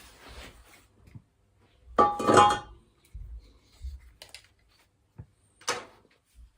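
Objects being handled, clinking and knocking. The loudest is a clink with a short ringing tone about two seconds in, followed by a few small ticks and a sharp knock near the end.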